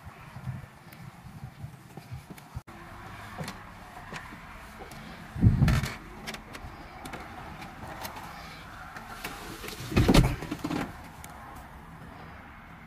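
Two short, dull thumps about five and ten seconds apart, with light knocks and rustles between them, from someone climbing into and moving about the cab of a parked fire engine.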